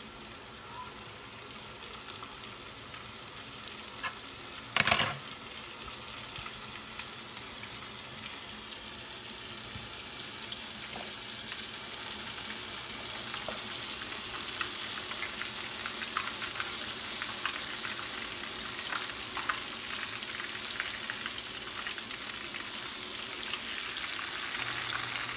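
Breaded crappie fillets frying in hot oil in a skillet: a steady sizzle with scattered small pops. It gets louder near the end as another fillet is lowered into the oil. A single short knock about five seconds in.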